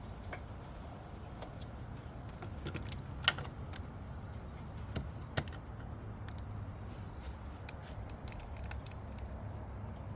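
Metal hand tools clinking and ticking on bolts and battery hardware: scattered light metallic clicks, with one sharp clink about three seconds in and a quick run of small ticks near the end.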